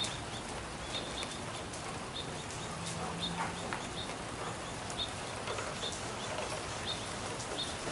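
Steady hiss of rain falling, with small birds chirping repeatedly in short high notes.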